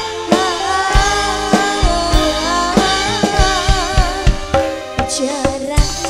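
Live dangdut band playing: a woman sings into a microphone over electric keyboards, bass and a steady drum beat.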